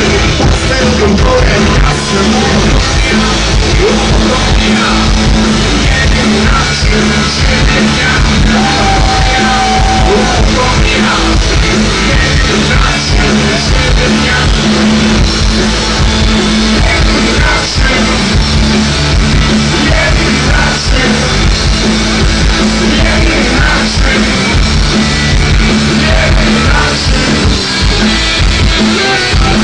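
Live garage-punk rock band playing loud, with the singer shouting the vocal into the microphone.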